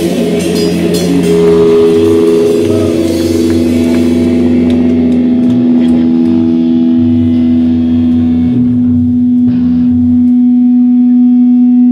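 Live rock band with electric guitars holding long ringing notes. The cymbals fade out after about four seconds and the bass stops near ten seconds, leaving one sustained guitar note.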